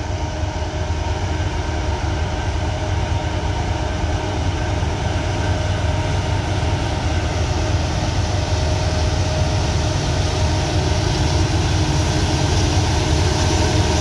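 EMD SD70MAC diesel-electric locomotive approaching in notch 8 (full throttle): a steady, deep engine drone with a turbocharger whine on top, slowly growing louder.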